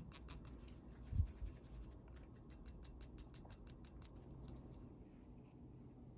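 Plastic spatula mixing glaze paste with liquid on a mixing palette: a quick run of faint scrapes and taps that stops after about four and a half seconds, with one dull thump about a second in.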